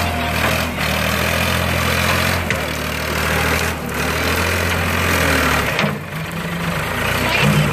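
Ford 445D skip loader tractor's diesel engine running as it pushes into a burning brush pile, its note changing about six seconds in. A steady rushing crackle from the burning brush runs underneath.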